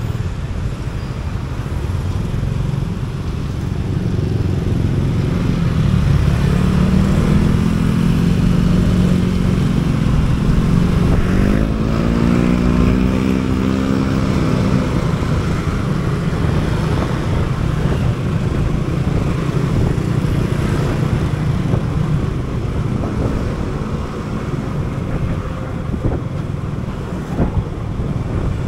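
Motor scooter riding in city traffic, with a steady low rumble of engine and road noise. Around the middle, an engine note rises and falls in pitch for several seconds.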